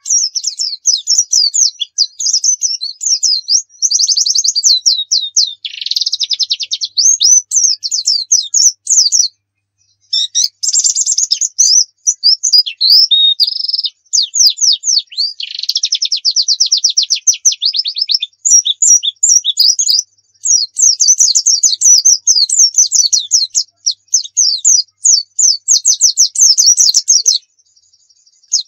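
White-eye (pleci dakun Pacitan, a Zosterops) singing its full, rapid 'nembak' song: a fast, high-pitched stream of twitters, trills and quick rising and falling notes, packed with varied phrases, broken by a few short pauses.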